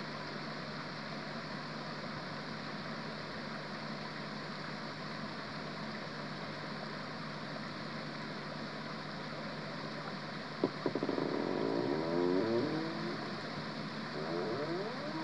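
Steady rush of a forest stream, with water running along a split-bamboo channel. About ten and a half seconds in there is a sharp click, then a louder wavering sound rises over the water for a couple of seconds and comes again briefly near the end.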